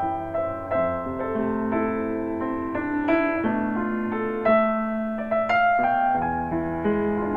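Recorded piano music with a bass line playing back through a KT88 valve power amplifier fitted with 5814 SRPP driver tubes. It is an instrumental passage of a vocal song, with a steady flow of piano notes and no singing.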